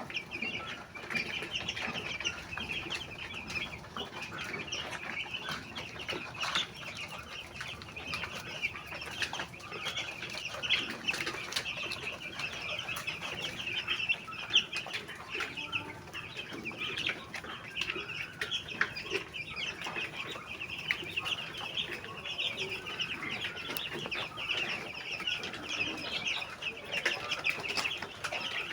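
A flock of chickens calling without pause, many short high calls overlapping into a continuous chatter, with occasional clucks and wing flaps.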